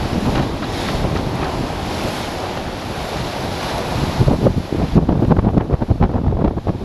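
Strong wind buffeting the microphone over the rush of breaking waves along a sailing yacht's hull in rough seas. About four seconds in, the buffeting grows louder and choppier.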